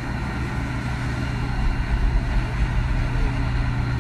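An engine running at a steady, unchanging pitch, with wind rumbling on the microphone.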